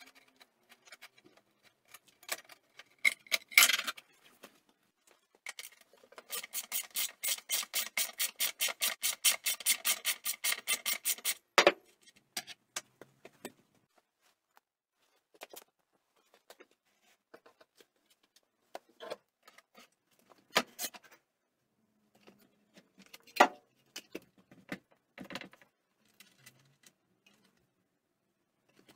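Hand work on a Honda P50 moped's rear wheel: scattered metal clicks, taps and clinks, with a fast run of even ratcheting clicks, about nine a second, lasting about five seconds from around six seconds in.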